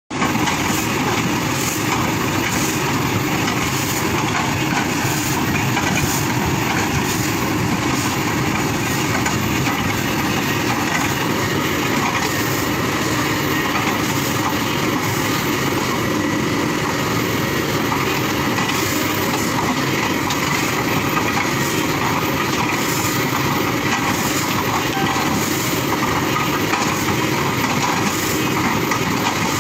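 Kobelco excavator working, chipping oil palm trunks: a steady, loud, heavy machine noise with faint regular knocks about once a second.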